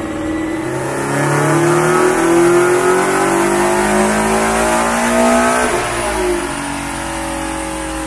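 Toyota GT86's 2.0-litre flat-four engine, fitted with an aftermarket extractor and exhaust, revving under load on a chassis dyno: the pitch climbs steadily for about five seconds, drops sharply about six seconds in, then runs on at a lower steady note.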